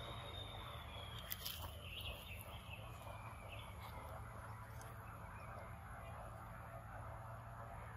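Faint outdoor ambience with a steady low rumble. A thin whistle-like tone falls slowly in pitch and fades over the first few seconds, with a couple of faint clicks about a second and a half in.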